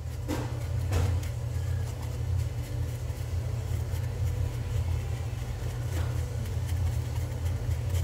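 A steady low hum of a running motor, with a few faint taps.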